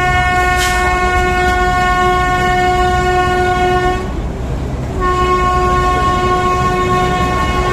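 Neral–Matheran toy train locomotive's horn sounding two long, steady blasts, the second starting about a second after the first stops, over a low rumble.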